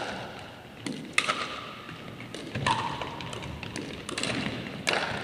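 Pickleball paddles striking a hollow plastic ball during a rally: about five sharp pops at uneven intervals, each ringing briefly and echoing off the gymnasium walls.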